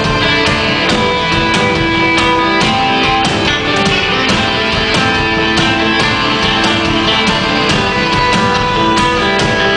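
A live rock band playing: electric guitars, bass guitar, drums and keyboard, with a steady drum beat under held guitar and keyboard notes.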